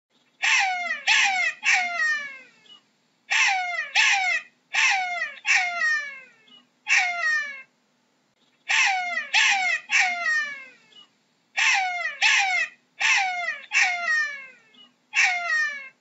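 Jackal calling: short, high wailing cries, each sliding steeply down in pitch, in quick bouts of three to five with brief pauses between bouts.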